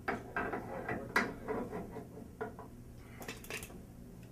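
Metal door hardware and hand tools being handled: a string of short clicks and scrapes, then a quick cluster of bright clicks about three seconds in.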